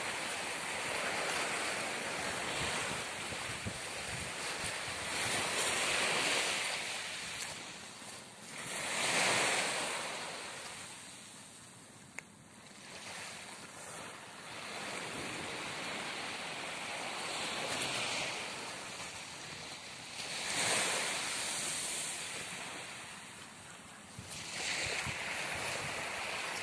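Small waves breaking and washing up a pebbly beach, the surf swelling and fading every few seconds, with wind buffeting the microphone. A single sharp click comes about halfway through.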